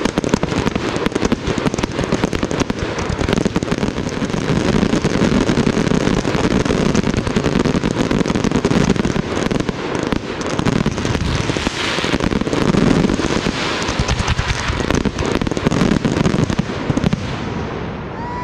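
Dense fireworks barrage: aerial shells and cakes firing and bursting in rapid, overlapping bangs mixed with crackle, thinning out near the end.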